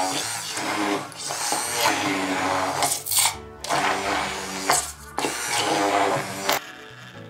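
Background music over an immersion blender whirring as it blends butter and condensed milk into a thick cream.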